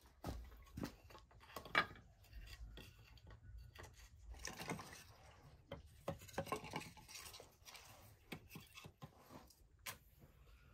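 Scattered knocks, taps and scrapes of food-preparation work: utensils and food being handled, at an irregular pace. The sharpest knock comes a little under two seconds in.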